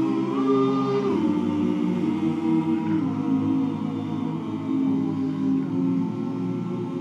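Barbershop chorus singing a cappella, holding long sustained chords, with a high top note over the chord in the first second.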